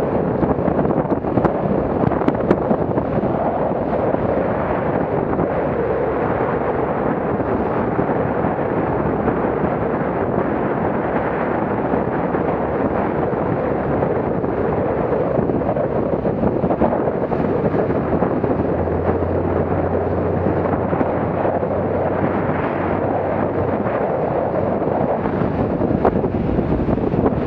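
Steady rush of wind buffeting the microphone, mixed with water noise from a small motorboat running at speed through choppy water.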